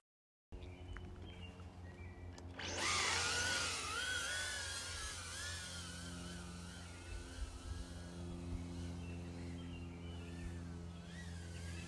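Happymodel Mobula 6 tiny whoop's brushless motors and props spinning up a few seconds in and then whining steadily in flight, the pitch wavering up and down with the throttle.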